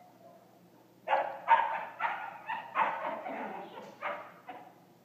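Belgian Malinois puppy barking in a quick run of about eight yipping barks, starting about a second in and stopping shortly before the end.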